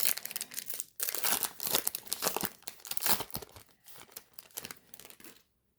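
A Topps baseball card pack wrapper being torn open and crinkled by hand, in a run of quick crackling rips that stops about five seconds in.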